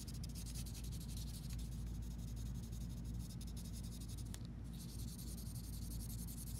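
Paper blending stump rubbing charcoal into drawing paper in quick back-and-forth diagonal strokes, a dry scratchy shading sound with a brief pause about two-thirds through.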